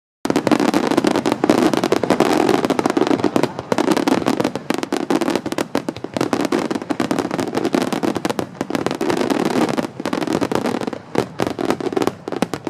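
Fireworks bursting: a dense, continuous crackle of many small pops over the rumble of bursts, thinning to scattered single pops near the end.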